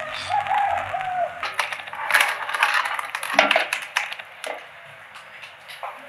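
A rooster crows once near the start, a wavering call of about a second. A run of sharp clicks and knocks follows, ending with a heavier knock about three and a half seconds in.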